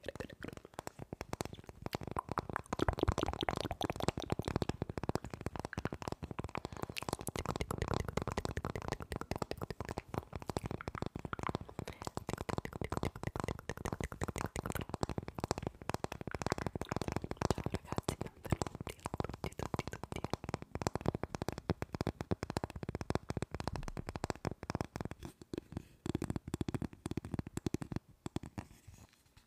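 Long fingernails scratching and tapping over the thick, textured paint of a painted block held close to the microphone, in a dense run of rapid irregular scratchy clicks.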